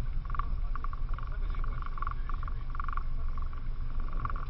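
Steady low rumble aboard a rigid inflatable boat at sea, with short raspy buzzes repeating irregularly through it.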